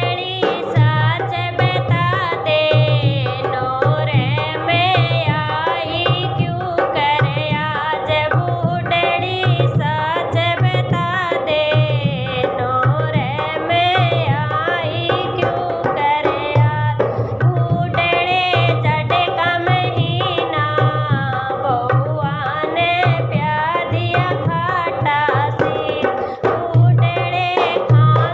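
Haryanvi folk-song music: hand drums keep a steady beat under a melody whose pitch wavers.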